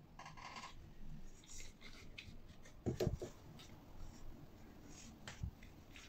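Faint handling noises: rustling and small clicks as a wire and a plastic lamp holder are picked up and handled, with a soft knock about three seconds in.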